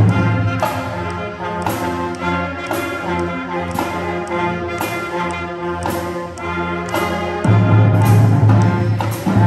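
A marching band's brass section and front ensemble playing a piece together in rehearsal: sustained brass chords over a regular beat about once a second. Louder low notes come in about seven and a half seconds in.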